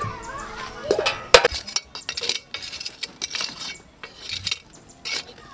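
Metal cookware clinking and scraping: an aluminium pot lid handled and a metal poker knocking among burning charcoal lumps under a pot. It is a string of irregular sharp clinks, the loudest about a second and a half in.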